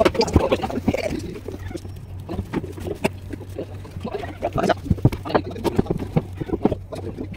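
Irregular knocks, clicks and rustles of rope and wooden planks being handled and tied, over a steady low hum.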